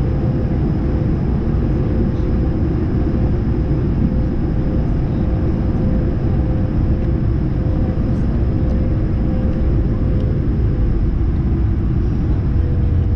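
Cabin noise inside an Airbus A220-100 taxiing: a steady low rumble from its Pratt & Whitney PW1500G geared turbofan engines at low power, with a steady whine over it.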